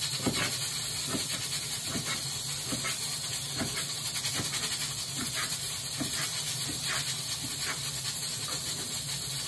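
Kitchen knife slicing rolled collard greens into fine shreds on a cutting board: a short cut about every two-thirds of a second, steady and even, over a constant hiss.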